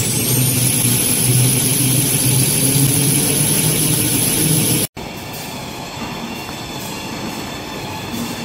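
Toilet paper and kitchen towel production line machinery running, with a high whine that climbs over the first second and then holds steady over a low hum. The sound breaks off about five seconds in and gives way to a quieter, steady machine noise with faint tones.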